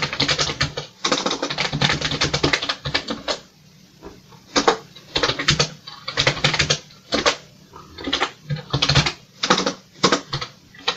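Typing on a computer keyboard: quick runs of clicking keystrokes, a brief pause about three and a half seconds in, then shorter bursts of keys.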